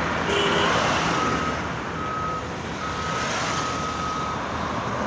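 A vehicle's reversing alarm beeping four times at one steady high pitch, starting about a second in, over a steady rumble of engines and road traffic.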